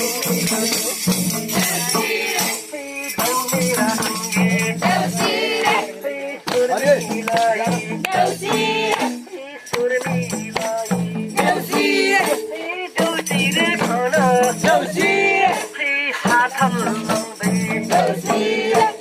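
A Nepali deusi bhailo song: voices singing a wavering melody over shaken, jingling percussion.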